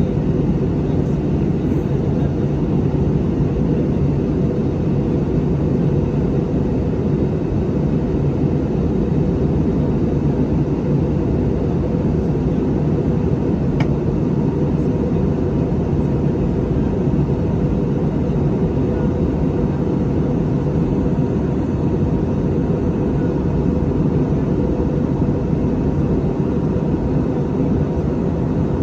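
Airliner noise: a steady low rumble that holds even and unchanging throughout, with a faint steady whine above it.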